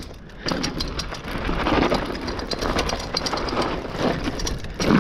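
Lapierre mountain bike rolling fast down a loose, rocky trail. The tyres crunch over the stones and the bike rattles with many sharp clicks over the bumps, building up about half a second in.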